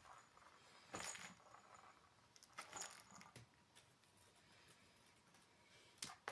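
Near silence: quiet room tone with a few faint clicks and rustles, about a second in, around three seconds in, and again near the end.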